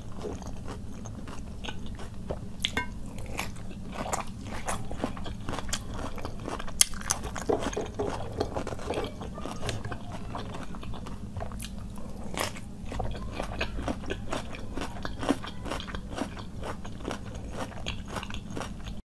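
Close-miked chewing of raw cucumber and carrot salad, with many sharp, irregular crunches.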